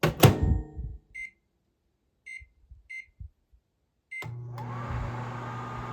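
A 1985 GE JEM6001 microwave oven's door shuts with a loud clunk, four short high beeps follow as it is set, and about four seconds in the oven starts: a steady hum with fan noise as it cooks.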